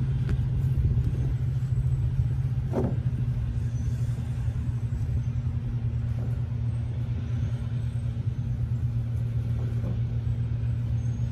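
A steady low motor hum, like an engine running, with a faint higher tone joining about three seconds in. One brief short sound stands out near three seconds.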